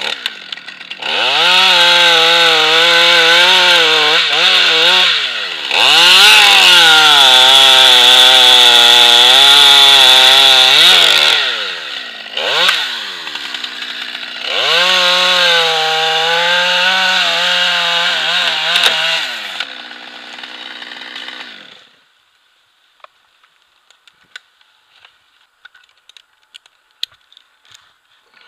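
Stihl chainsaw running and cutting into a beech limb, its engine pitch dipping and rising as it bites, in three long spells with brief drops between. It stops a little over twenty seconds in, leaving only faint scattered clicks and knocks.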